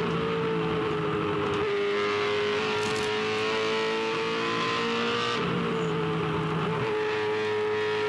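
Holden Commodore V8 Supercar's 5.0-litre V8 heard from inside the cockpit, at full throttle and high revs in fourth gear, about 7,000 rpm. It holds a steady note whose pitch rises slowly as the car picks up speed, over wind and tyre noise.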